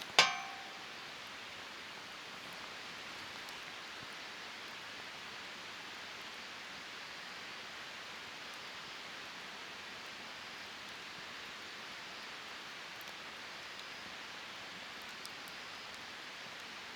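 Wood fire burning in a Snow Peak steel fire stand, giving a steady soft hiss with only an occasional faint crackle. Right at the start there is a single sharp clank that rings briefly, like metal being knocked.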